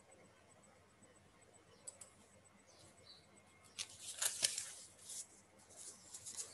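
A quiet room, then a quick cluster of soft clicks and rustling close to the microphone about four seconds in, with a few fainter ticks near the end.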